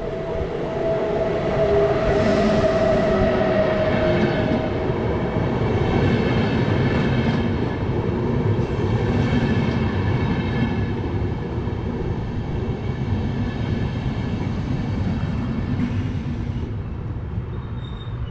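Electric locomotive and a long rake of double-deck passenger coaches running past. In the first few seconds the locomotive's whine falls in pitch as it passes. After that comes the steady rumble of the coaches' wheels on the rails.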